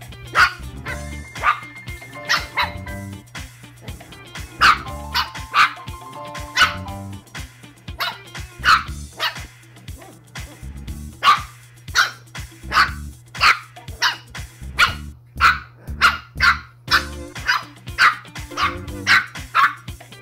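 Shih Tzu puppies barking and yipping as they play-fight: many short, sharp barks, coming faster, about one to two a second, in the second half, over background music.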